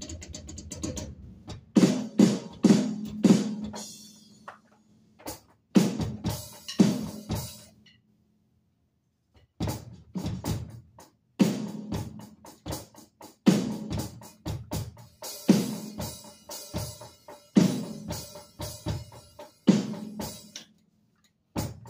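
Electronic drum kit played in short phrases of beats and fills, with kick, snare and tom hits and brief stops between phrases, the longest about a second and a half.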